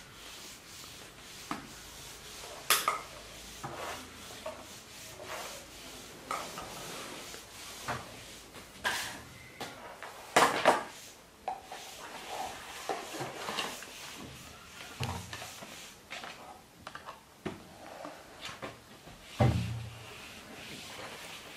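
Scattered knocks, taps and rustling of small plastic toys and a cardboard carton being handled and set down on a wooden floor, with a few sharper clacks and a dull thump near the end.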